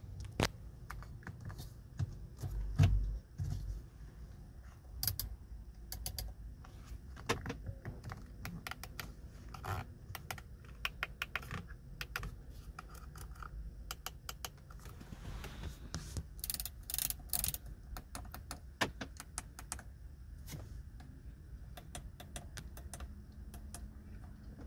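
Irregular series of crisp plastic clicks as the 2018 Audi A5's buttons are pressed one after another: first the steering-wheel buttons and scroll wheel, then the climate-control panel buttons, with a quick run of clicks past the middle. A dull thump about three seconds in is the loudest sound.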